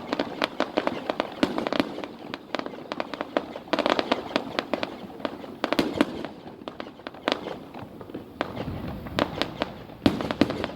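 Fireworks going off in a dense, irregular barrage of sharp bangs and crackles, several a second, with the heaviest cluster about four seconds in and a louder burst near the end.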